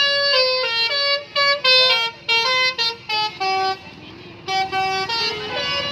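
Indonesian bus "telolet" multi-tone musical air horn playing a tune of short notes that step up and down in pitch, pausing for about half a second roughly two-thirds through before playing again.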